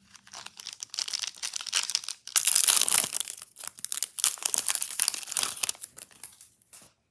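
Foil wrapper of a baseball card pack crinkling and tearing as it is handled and opened. The crackling is loudest about two and a half seconds in and stops just before the end.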